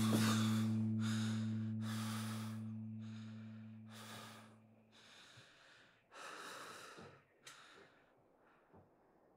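A man breathing heavily and raggedly, a breath roughly every second, under a low held guitar note of the score that fades away over the first five seconds.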